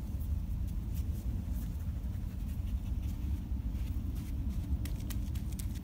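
Springer spaniel panting, over a steady low wind rumble on the microphone.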